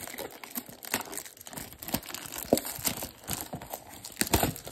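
Plastic wrap on a trading-card blaster box crinkling and tearing as it is unwrapped by hand: a run of irregular sharp crackles.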